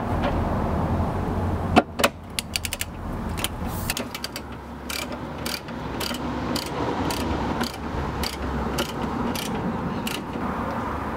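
Ratchet wrench on a long extension tightening a bumper mounting bolt: a quick run of pawl clicks about two seconds in, then single clicks about twice a second as the handle is swung back and forth.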